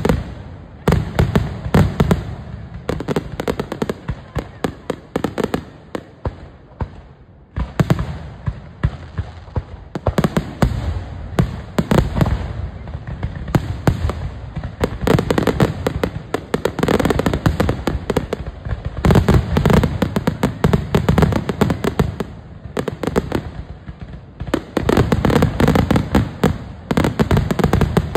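Fireworks finale barrage: many aerial shells bursting in rapid, overlapping succession with booms and crackling. The barrage eases briefly about seven seconds in, then builds again.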